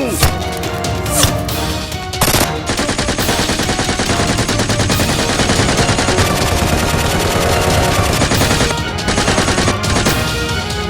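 Automatic gunfire sound effects over background music: a few single shots, then a long rapid burst of fire from about two seconds in until near the end.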